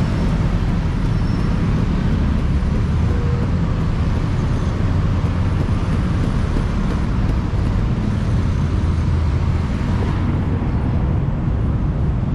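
Steady rumble of heavy city traffic: cars, motorbikes and buses running through a busy roundabout. The higher hiss fades a little near the end.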